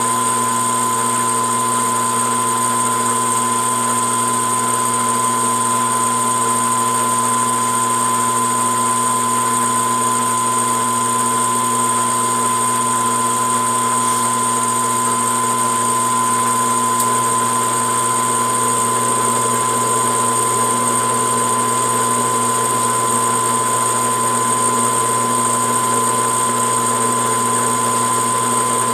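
Metal lathe running steadily while single-point threading a rifle barrel, its motor and gearing giving an even hum with a steady whine over it.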